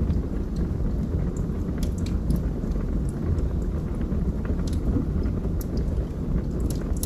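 Wood fire burning in a fireplace: a steady low rumble of flames with scattered, irregular crackles and pops from the burning wood.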